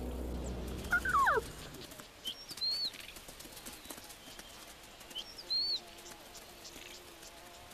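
Quiet grassland ambience with short high bird chirps, twice, a few seconds apart, and a pair of falling whistled calls about a second in.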